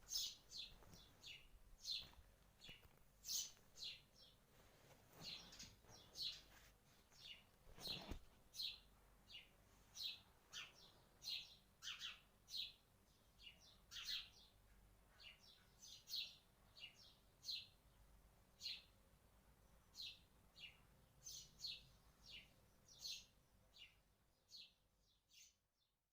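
Faint birdsong: short, high chirps repeated every half second to a second, going on throughout.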